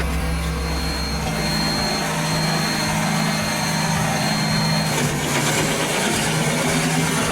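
Heavy machinery running steadily, an engine-driven machine with a constant drone and a thin high whine through the first few seconds.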